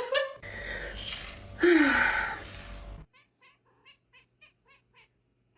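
A cat's loud cry falling in pitch, over a noisy background, then after a cut a quick run of short, faint mews, about three a second.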